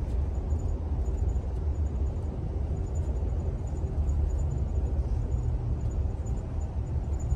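Interior running noise of a moving passenger train car: a steady low rumble.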